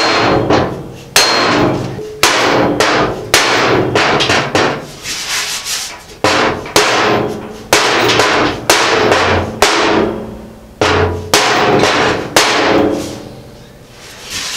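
Steel side panel of a Ford Model A pickup bed struck over and over with a mallet, roughly one to two big whacks a second, each blow ringing out through the sheet metal. The blows are knocking a bulged-out section of the box side back into line. The last blow comes about two seconds before the end and rings away.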